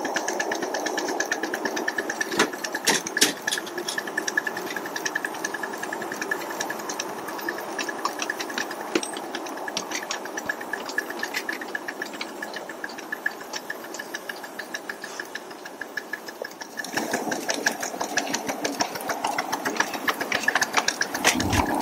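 An unsteamed 5-inch gauge miniature steam locomotive being pushed along a garden railway, heard from on board: a steady mechanical running clatter of wheels and motion on the rails, with fast repeated clicking and a steady whine. It gets louder about seventeen seconds in.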